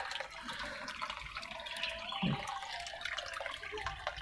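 Tap water running steadily and splashing into a fish pond, with one short low sound about two seconds in.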